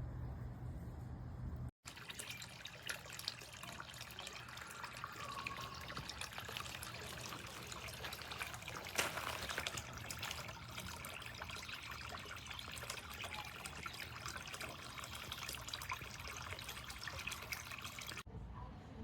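Small solar-powered flower-shaped fountain spraying water that splashes and trickles back into the water beneath it, steady and continuous. It starts after a cut about two seconds in and stops at a cut near the end.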